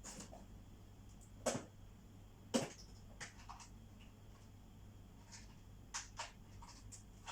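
Scattered sharp clicks and taps of small objects being handled, the loudest two about one and a half and two and a half seconds in, over a low steady hum.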